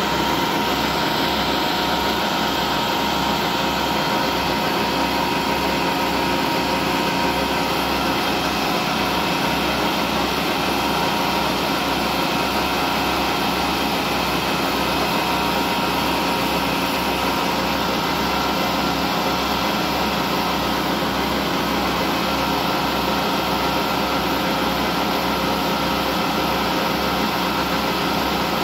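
Vertical lathe running steadily while its tool cuts a groove in a large steel ring: an even machine hum with several steady tones over it.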